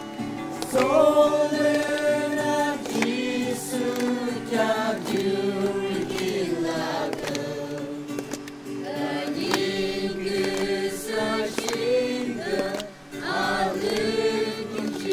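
A group of voices singing together in choir style, holding long notes, with a brief pause near the end.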